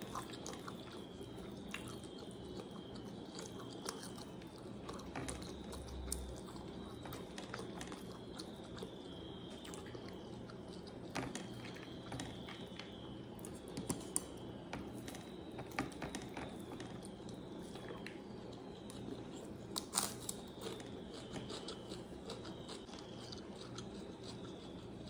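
Close-up eating sounds: a mouthful of chicken biryani being chewed, with scattered sharp clicks from the mouth and from the hand working the rice, the loudest about 14 and 20 seconds in, over a steady low hum.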